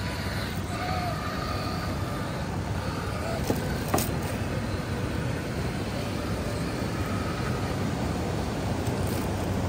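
Axial SCX6 Honcho RC crawler's electric motor and drivetrain whining faintly as the truck climbs rock, over a steady low rush of noise. Two sharp knocks about three and a half and four seconds in.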